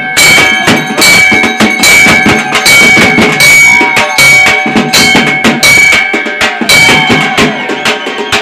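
Loud festival music: a steady, heavy drum beat with a high note held over it, accompanying a karaga procession dance.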